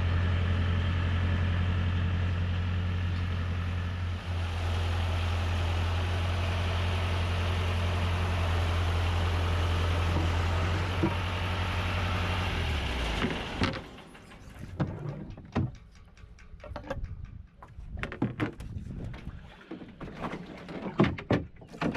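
Boatyard travel lift's engine running steadily at idle, then slowing and shutting off about thirteen seconds in. After it, scattered light knocks and clunks.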